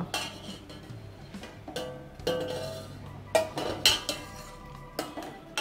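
A stainless-steel ladle clinks against a steel pot and plate as boiled lemons are scooped out of the hot water. There are about six separate knocks, each with a short metallic ring.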